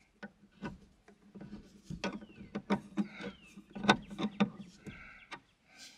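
A screwdriver turns a quarter-inch bolt through a hole in a metal strap bracket, giving irregular clicks and clinks of metal on metal. There are a couple of short falling squeaks about two and three seconds in.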